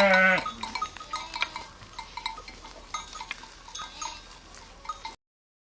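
A sheep's bleat trails off in the first moment. It is followed by faint, irregular clinking of small livestock bells on the flock, which stops abruptly about five seconds in.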